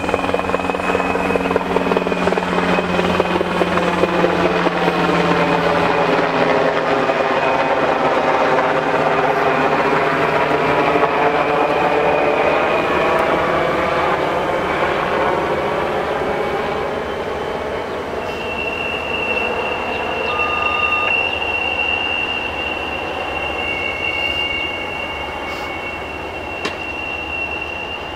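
An aircraft passing low overhead, its noise loudest in the first half, over a slow CSX freight train moving through the rail yard. About two-thirds in, a high steady squeal of train wheels on the rail begins.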